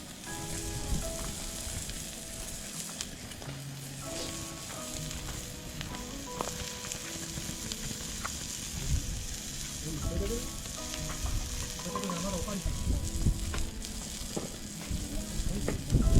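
Food sizzling in a pan: a steady frying hiss, with soft background music notes over it.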